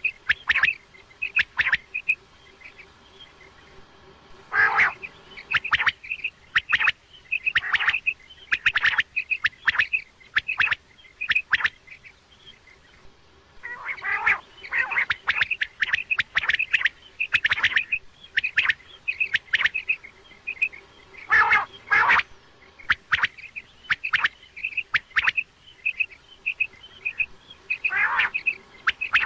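Common quail calling over and over: quick runs of short, sharp, high-pitched notes, with a few louder calls standing out and brief lulls between runs.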